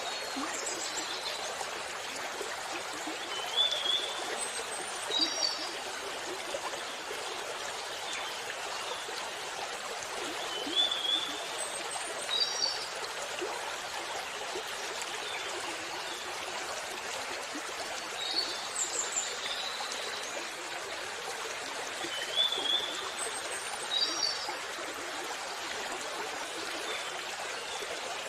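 Waterfall water rushing steadily, with short high bird chirps every few seconds.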